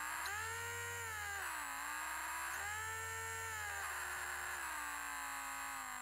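Electric drill motor running with a whine that speeds up and slows twice, then slides gradually lower in pitch near the end as it eases off.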